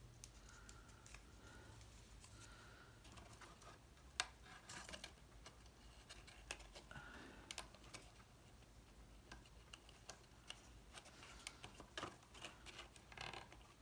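Faint handling of cardstock pieces: light rustles and scattered small clicks as a paper handle is curved and fitted.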